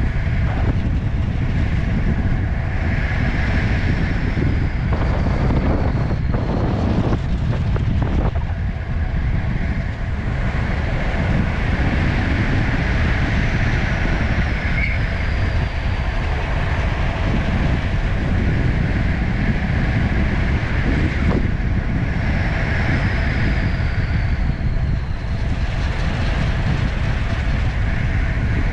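Wind rushing over the microphone of a camera on a bicycle being ridden, a steady loud rumble.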